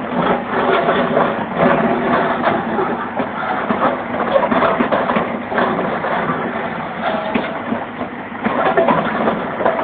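Backhoe's diesel engine running steadily.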